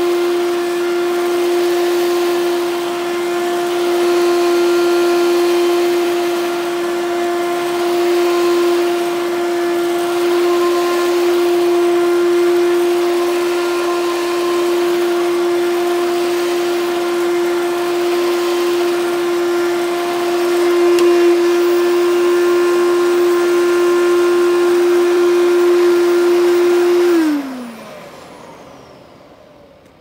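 Vintage Fantom Thunder vacuum cleaner running with a steady motor whine over a rush of air, then switched off near the end, its pitch falling as the motor spins down.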